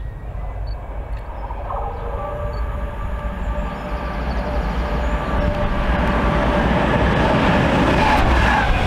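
Class 66 diesel-electric freight locomotive approaching and passing close by, its two-stroke EMD diesel engine and wheels on the rails growing steadily louder. A steady whine comes in about two seconds in, and the sound is loudest as the locomotive goes past near the end.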